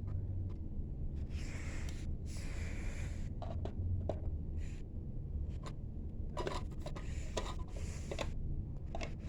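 Handling noise: rubbing and scraping with scattered light clicks, clustered about a third of the way in and again near the end, over a low steady hum.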